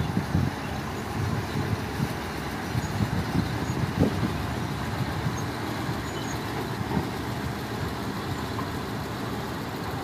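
Heavy diesel machinery and dump trucks working an earthmoving site: a steady low rumble with a few short thumps, the clearest about four seconds in.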